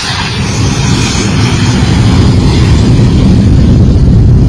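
Boeing 757 cargo jet on the runway: a loud, low rumble that swells over the first couple of seconds and then holds.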